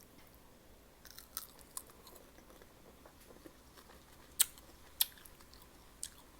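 Close-up mouth sounds of a person eating sour mango: a scattered series of sharp wet clicks and smacks as she chews, starting about a second in, the loudest two near the middle.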